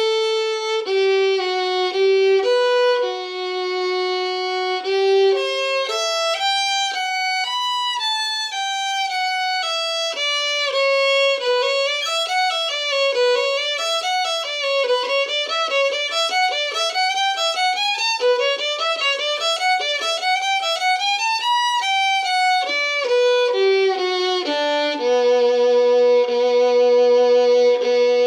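Violin played alone with the bow: a slower melody, then fast runs up and down from about ten seconds in, ending on a long held low note near the end.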